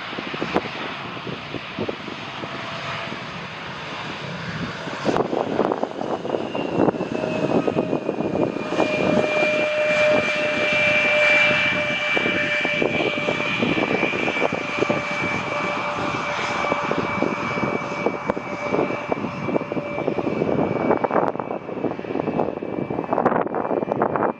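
Jet airliner on final approach passing close by, its engine noise growing louder over the first several seconds and then holding. A high-pitched whine from the engines, with a lower tone under it, falls slightly in pitch as it passes.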